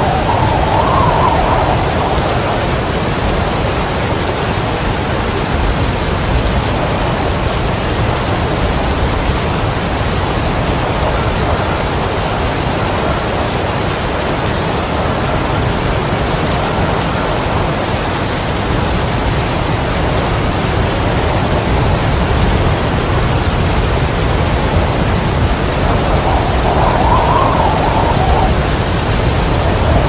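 Heavy rain falling steadily in a storm, with a constant low rumble underneath. A brief swell rises through the rain about a second in and again near the end.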